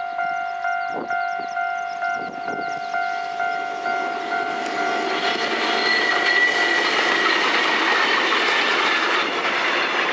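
A railway level-crossing bell rings about twice a second. Then a Taisho-era Kotoden retro electric train passes close by, its wheels and running gear building to a loud rush about five seconds in, with a brief high whine.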